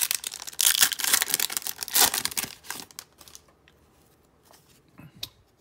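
Foil trading-card pack wrapper crinkling and tearing as it is opened and pulled off a stack of cards. The crackle is loudest in the first two seconds and dies away about three seconds in, followed by a couple of faint clicks from the cards being handled.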